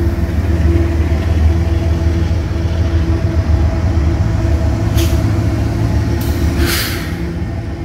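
Diesel locomotive engine running with a steady low drone and a held tone, with two short hisses about five and seven seconds in.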